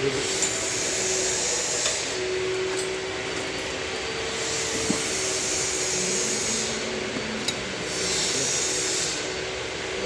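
Steady machine whirring with a constant hum, and a high hiss that swells and fades three times.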